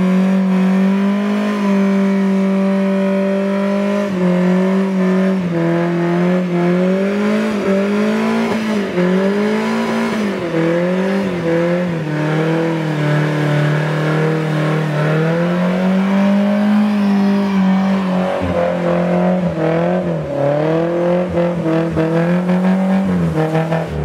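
Nissan 240SX's engine held at high revs through a burnout, its pitch rising and dipping again and again as the throttle is worked, with the spinning rear tyres screeching.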